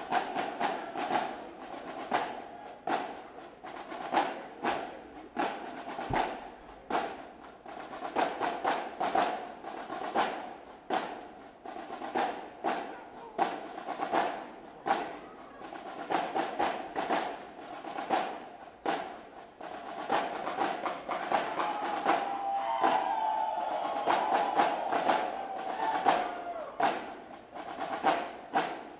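Marching band drumline playing a percussion cadence: crisp snare and stick or rim clicks struck in a steady rhythm.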